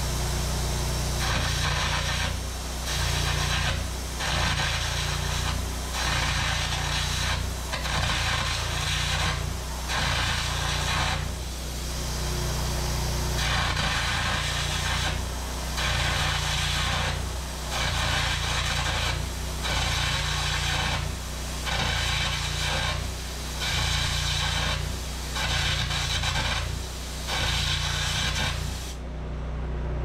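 Old welds being cut off a skid steer axle tube: harsh, noisy hissing strokes that start and stop about every two seconds, over a steady low hum. The strokes stop shortly before the end.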